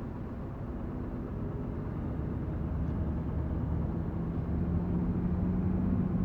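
Scania R560 truck's V8 diesel engine running steadily, with a low steady hum that builds and grows louder from about halfway and cuts off at the end.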